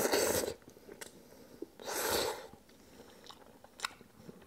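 A person slurping up a mouthful of chewy instant noodles in sauce from chopsticks, with a second slurp about two seconds in, then quiet chewing with faint mouth clicks.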